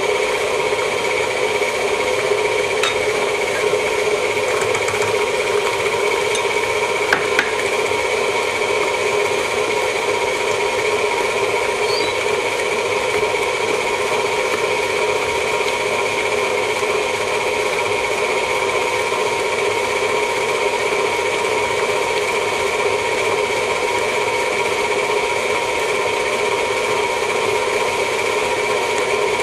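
KitchenAid tilt-head stand mixer running at a steady speed, its flat beater working added egg into thick pâte à choux dough in a stainless steel bowl: a constant motor whine.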